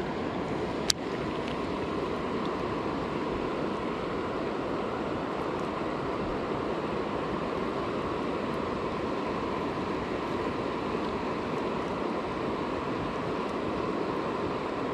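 Steady rush of a rocky river flowing over riffles and rapids, with a single sharp click about a second in.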